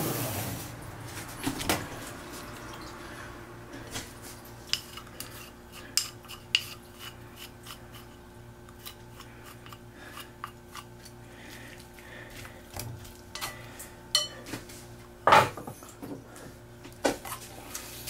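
Scattered light clicks and knocks of chopsticks and spinach against a ceramic suribachi as spinach is put into sesame paste and tossed, with a louder knock about three seconds before the end. A faint steady low hum runs underneath.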